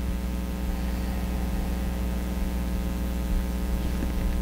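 Steady electrical hum with a row of overtones over an even hiss, unchanging throughout.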